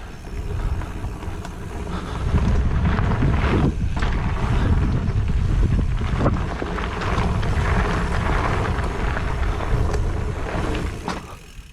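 Wind rushing over the microphone of a mountain biker riding down a dirt trail, mixed with tyre and bike rattle and a few sharp knocks. It gets louder about two seconds in and eases off near the end.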